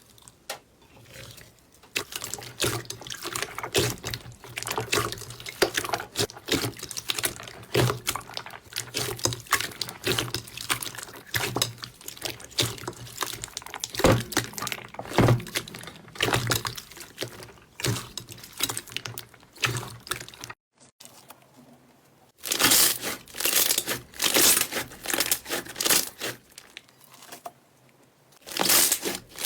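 Slime being squeezed and stretched by hand, giving a dense run of sticky, wet crackles and pops. It breaks off about twenty seconds in, and after a short pause comes back in louder bursts.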